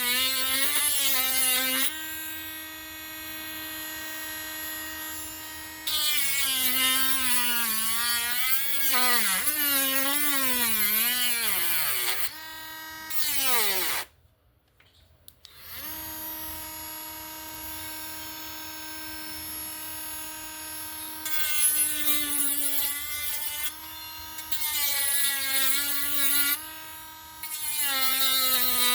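Handheld Dremel rotary tool running at high speed, cutting into the wood of a popper lure's mouth. Its pitch sags and wavers in louder grinding stretches as the bit bites, and holds steady in quieter free-running spells. About halfway through the motor winds down and stops briefly, then starts up again.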